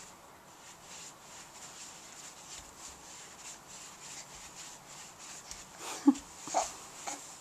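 Faint rustling and soft knocks as a baby kicks in a fabric bouncer seat, then three short squeaky baby vocal sounds close together near the end, the first the loudest.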